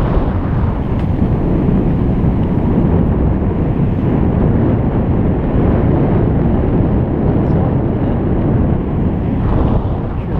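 Steady wind rumble buffeting a GoPro's microphone from riding a bicycle at speed.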